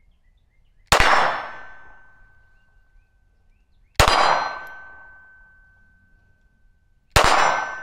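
Three shots from a SIG P320 Spectre Comp 9mm pistol, about three seconds apart, each a sharp crack followed by a long ringing tone that fades over two to three seconds. The slow spacing fits a pistol still jamming during its break-in.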